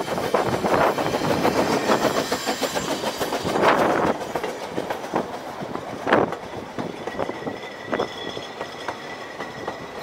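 Narrow-gauge steam locomotive Mountain Prince pulling its train past, loudest over the first four seconds as the engine goes by. Its carriages then roll past, with a few clacks of the wheels over rail joints and a faint thin squeal near the end.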